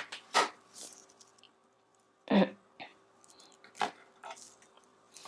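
A few short, scattered handling noises, knocks and rustles, with the loudest about two and a half seconds in.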